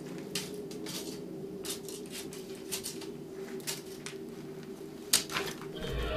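Small handling and movement sounds of a person on a gritty, debris-strewn floor and against crumbling plaster: scattered light clicks and scuffs, one sharper about five seconds in, over a steady low hum.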